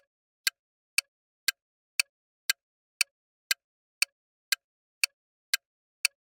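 Countdown-timer sound effect: a clock ticking evenly at two sharp ticks a second, counting down the time left to answer.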